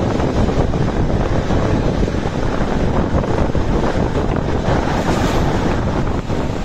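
Loud wind buffeting the microphone held out of a moving Bo passenger coach's window, over the steady rumble of its wheels running on the track.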